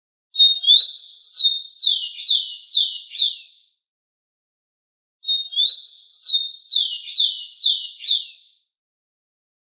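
Rufous-collared sparrow (tico-tico) singing its whistled song twice. Each song opens with a short steady whistle and a rising note, then a run of about five clear down-slurred whistles, roughly two a second.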